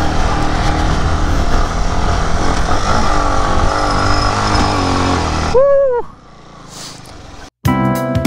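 Yamaha motorcycle engine pulling hard under load as it climbs a steep dirt hill, with heavy wind on the microphone. About five and a half seconds in, it gives way to a brief high cry, and music starts near the end.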